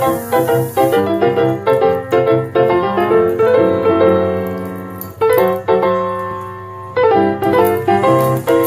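Background piano music: a melody over chords, with some long notes left to die away.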